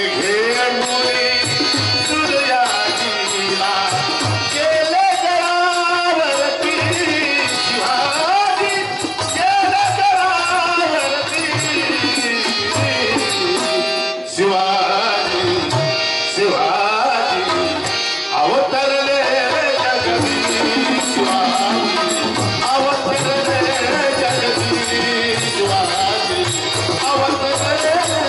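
A male lead singer sings a Marathi devotional bhajan with tabla accompaniment, his voice gliding through long curving melodic lines over steady drum strokes, with a brief break about halfway through.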